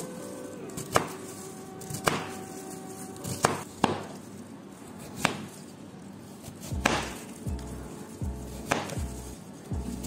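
Chef's knife chopping on a cutting board: about eight separate, irregularly spaced strikes, first through shredded cabbage and then slicing a raw jicama into rounds.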